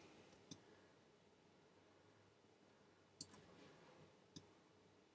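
Three faint computer mouse clicks, one about half a second in, one just after three seconds, and one about a second later, over near silence.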